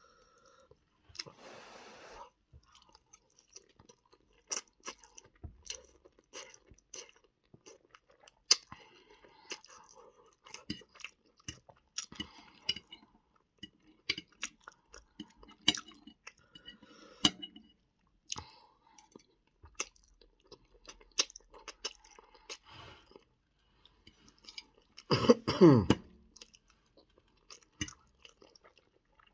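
Close-up chewing of spaghetti, with irregular wet clicks and smacks of the mouth. About 25 seconds in comes a short, loud throat sound that falls in pitch, the loudest thing here.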